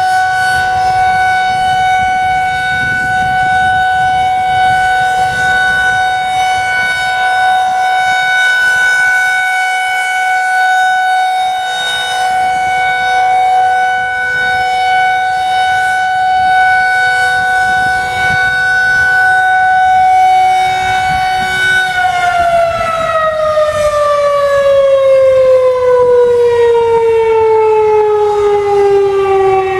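Federal Signal 2001 SRNB rotating electromechanical warning siren sounding the steady Alert tone at the end of a three-minute test. It holds one steady pitch, then about 22 seconds in it is cut off and winds down, its pitch falling smoothly.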